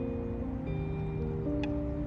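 Soft instrumental background music: held notes that change every half-second or so, over a low rumble of outdoor noise.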